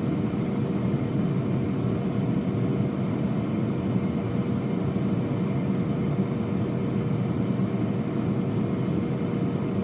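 Air fryer running: the steady whoosh of its fan with a faint constant hum.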